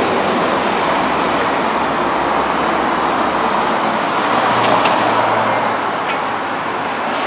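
Steady road traffic noise, with the low hum of vehicle engines under an even rush of tyres and wind.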